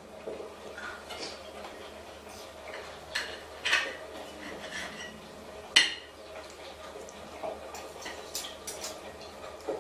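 Scattered sharp clinks and knocks over a faint steady room hum, the loudest a little under six seconds in.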